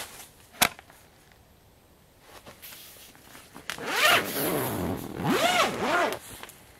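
A tent-door zipper pulled open in two long, loud strokes, its pitch sweeping down and then rising and falling with the speed of the pull. A single sharp click comes about half a second in.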